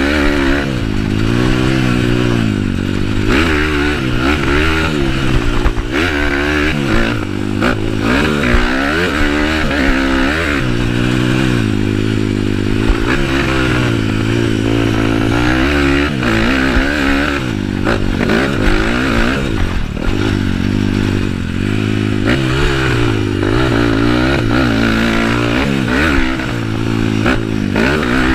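Bored-up, stroked Kawasaki KLX single-cylinder four-stroke trail bike engine revving under hard riding, its pitch rising and falling over and over as the throttle opens and closes.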